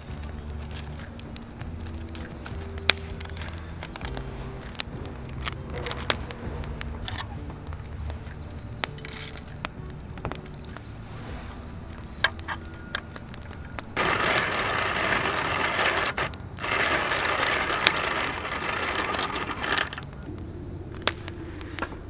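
Hand-cranked wooden box coffee mill with a cast-iron hopper grinding coffee beans: a loud, steady crunching rasp that starts about two-thirds of the way in, breaks off briefly, then runs on for a few more seconds before stopping. Before it, light clicks and rattles of beans and background music.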